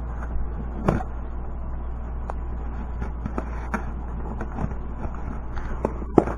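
Hands handling a taped cardboard shipping box: scattered light knocks, taps and rustles over a steady low hum.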